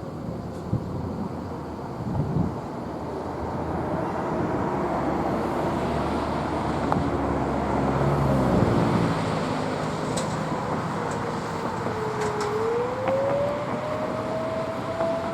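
Outdoor warning siren over steady road traffic noise: a cluster of siren tones slides down through the middle, then a single tone dips lower and climbs back up to hold steady near the end.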